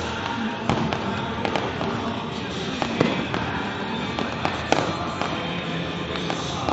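Aerial fireworks bursting, with irregular sharp bangs and crackling over a dense continuous rumble, and music playing underneath.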